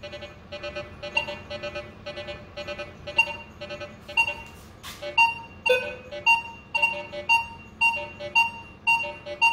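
Minelab Vanquish 540 metal detector sounding its target tones as the coil sweeps over a nail board: a stream of short beeps at mixed pitches, the low iron tones of the nails blending with higher tones for the buried penny. From about five seconds in the beeps are louder and regular, about two a second.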